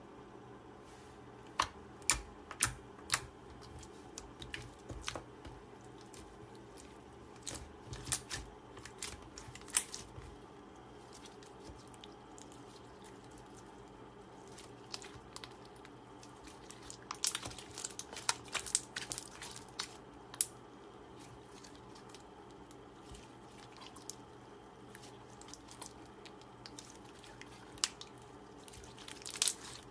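Slime being pressed and squeezed by hand, giving irregular sticky clicks and crackles, busiest about seventeen to twenty seconds in.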